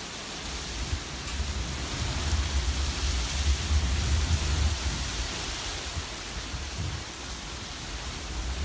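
Hurricane rain falling steadily, a continuous hiss, with gusty wind buffeting the microphone as a low rumble that swells in the middle and eases off again.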